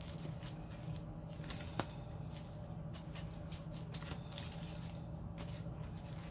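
Comic books being handled and shuffled in a stack: soft rustling and light taps, with one sharper click about two seconds in.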